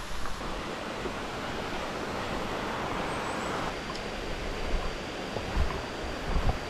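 Steady rush of falling water from a waterfall, with a few low thumps in the second half.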